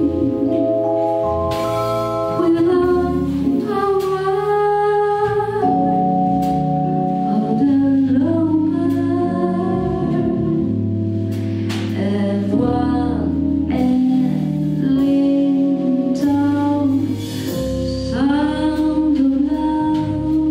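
Female jazz vocalist singing a slow ballad, holding long notes with vibrato, accompanied by a piano trio of piano, double bass and drums.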